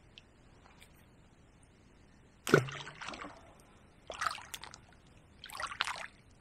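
Lake water splashing and sloshing in three short bursts at the bank's edge, the first the loudest with a dull thud.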